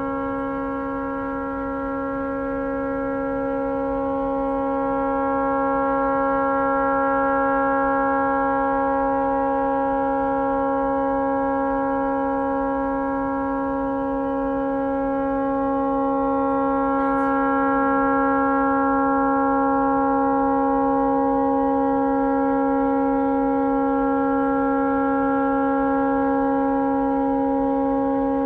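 A tugboat's horn stuck on after a malfunction, sounding one continuous, unbroken blast with a steady chord-like pitch that swells and fades slightly in loudness.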